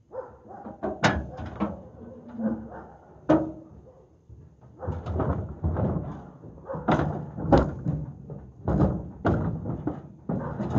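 Irregular knocks, clanks and scraping as a rusty steel-deck push mower is dragged across and lifted out of a pickup truck's metal bed, its deck and wheels banging on the bed.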